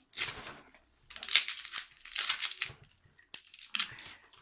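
Product packaging being crinkled, crushed and pulled at by hand in several rustling, crackling bursts as it is forced open.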